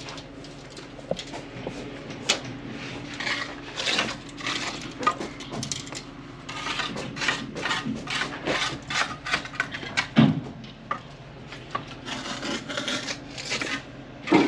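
Irregular scraping, rubbing and clicking as a tape measure is handled and laid against a block partition wall to measure the distance to the corner. There is a low thump about ten seconds in.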